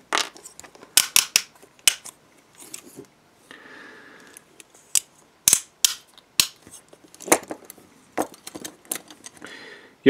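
Antique French aluminium handcuff worked by hand: its toothed bow moved through the lock and the key turned, giving irregular sharp metal clicks with a short faint rasp in the middle. The key cannot pull the lock bolt fully back, so the ratchet still catches lightly.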